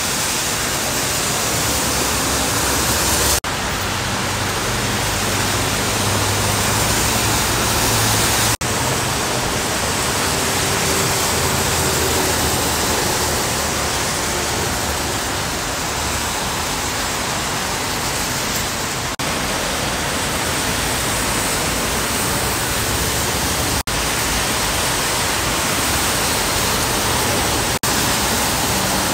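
Steady rushing hiss of heavy rain and tyres on a wet freeway, with a few brief dropouts.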